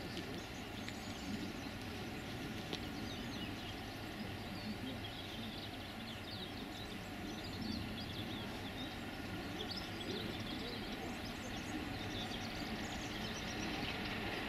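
Distant steam locomotive hauling passenger coaches as it approaches: a low, steady rumble that grows slightly louder near the end, with short high chirps over it.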